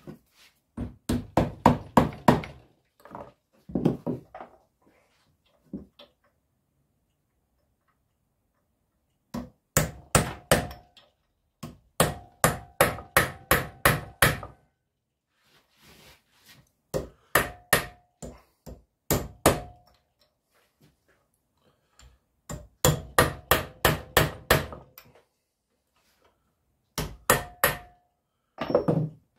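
Hammer striking a screwdriver to knock back the metal crimp tabs holding the motor can onto a motorcycle ABS pump unit clamped in a vise. The strikes come in bursts of several quick blows, some with a short metallic ring.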